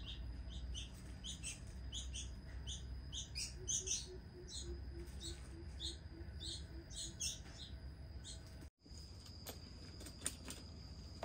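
Young birds chirping rapidly and repeatedly, about two or three high chirps a second: begging calls of hungry nestlings. The chirping stops after about seven and a half seconds, and after a sudden break a few faint clicks follow.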